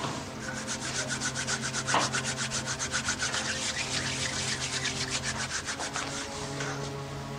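Two palms rubbed briskly together: a fast, even, dry rasping swish of about seven strokes a second, stopping about six seconds in.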